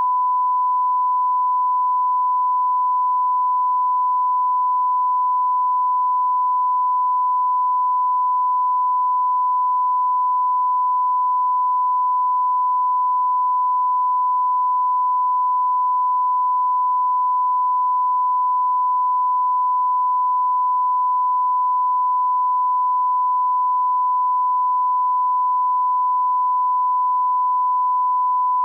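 Censor bleep: one steady, unbroken pure tone held at a constant pitch and level.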